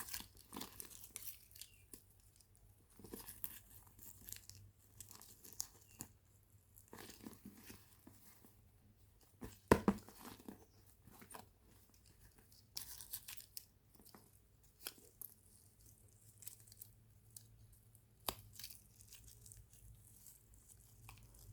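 Toy packaging being handled and torn open close to the microphone: intermittent crinkling and tearing rustles with a few sharp clicks, the loudest about ten seconds in.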